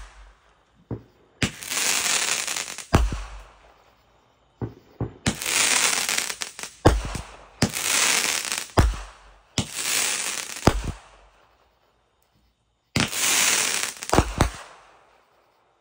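Aerial fireworks going off in a series of about six bursts. Each starts with a sharp bang and trails into a loud hissing, crackling spray of sparks lasting a second or two. There is a pause of about two seconds before the last burst.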